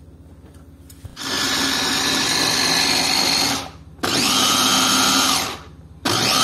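Electric mini chopper blending mango pieces with evaporated and condensed milk into a purée, its motor run in three pulses of a second or two each, the first starting about a second in.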